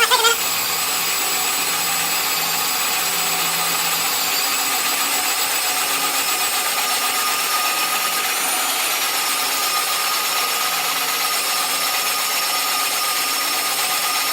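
Cordless power drill running steadily at speed, a bit boring into the steel of a welding table, with a constant high whine that dips slightly in pitch about halfway through.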